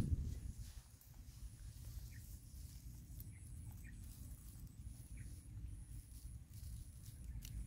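Faint rustling and small ticks of twigs and dry grass as a baby monkey clings to and climbs a thin branch, over a steady low rumble. A louder rustle right at the start dies away within the first second.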